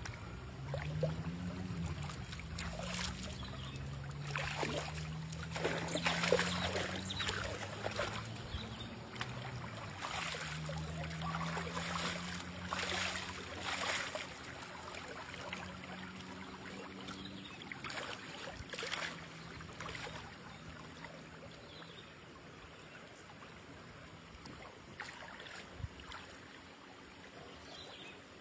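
Shallow river running over stones, with irregular splashing as a person wades through it and dips her hands in the water; the splashes are busiest in the first two-thirds and fade out toward the end. A low wavering hum sits underneath during the first part.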